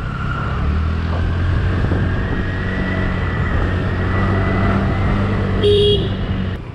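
Honda Activa scooter's single-cylinder engine running steadily under way. A short horn beep sounds near the end.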